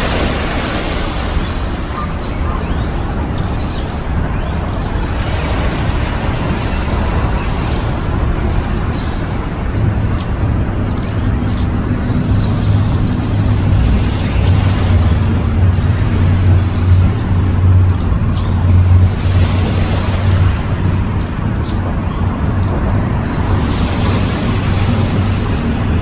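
Steady outdoor rumble and hiss, with a low steady hum that swells in about ten seconds in and fades out some ten seconds later. Faint short high ticks are scattered throughout.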